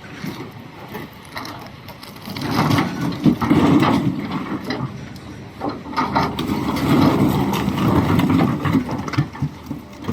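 Doosan DX390 excavator bucket crunching and scraping through rock, stones knocking and grinding in two heavy stretches, about two to five seconds in and again from about six to nine seconds, over the machine's steady low engine rumble.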